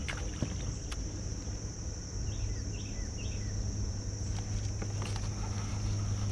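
Steady high-pitched drone of insects, with a bird giving three short falling calls in the middle and a few faint clicks.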